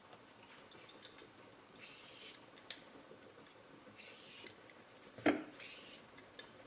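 Faint scraping strokes of a hand vegetable peeler stripping the skin off a cucumber, a few separate passes with light clicks between them, and a short knock a little past five seconds in.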